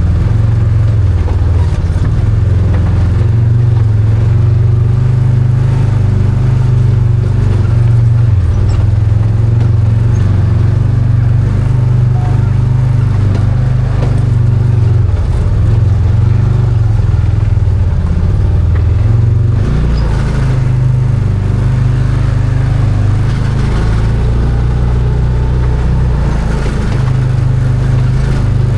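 Arctic Cat Wildcat 1000 side-by-side's V-twin engine running steadily under way, a loud low drone that rises and falls a little in pitch with the throttle.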